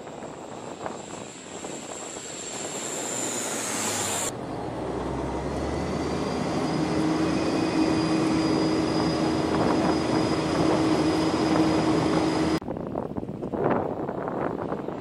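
Lockheed C-130J Super Hercules flying past overhead, the drone of its four turboprop engines and propellers. A high whine slides down in pitch about four seconds in, the middle holds a steadier engine drone with a low hum, and a more distant pass of the aircraft comes near the end.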